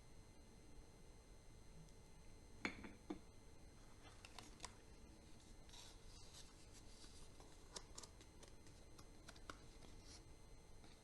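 Faint handling of chocolate wrappers: light crinkling and small ticks, with two sharper clicks about three seconds in.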